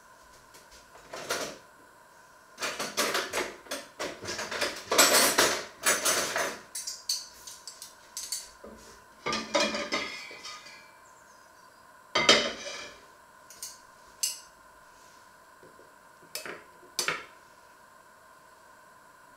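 Cutlery and dishes clinking and clattering as they are handled: a dense run of knocks and clinks in the first several seconds, then a few scattered single clinks.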